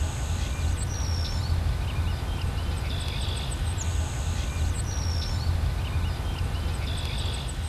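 Wild birds calling in the distance: thin high whistled notes, a falling note and short buzzy trills, the same pattern coming round about every four seconds. Under them runs a steady low rumble.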